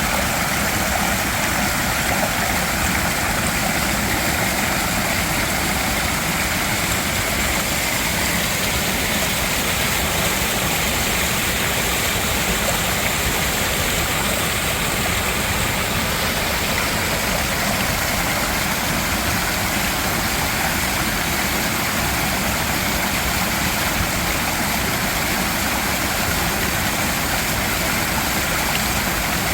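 Mountain valley stream rushing steadily, with an even, unbroken sound of running water.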